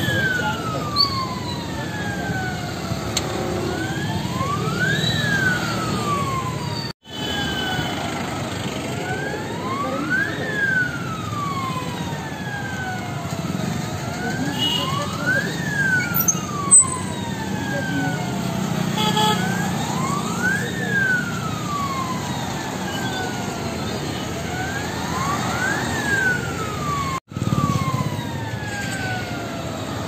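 Emergency alarm siren of a gold-loan finance company branch wailing. The pitch climbs in about a second, then slides back down over about four seconds, repeating roughly every five seconds.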